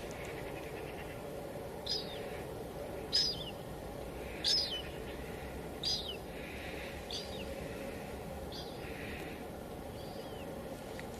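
Steady hiss of light drizzle, with a bird repeating a short, high, downward-sliding call about every second and a half.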